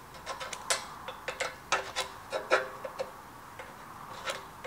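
Soapstone scratching on a metal mount as it is marked for cutting: a run of quick, irregular scrapes and ticks, thickest in the first two and a half seconds, with a few more near the end.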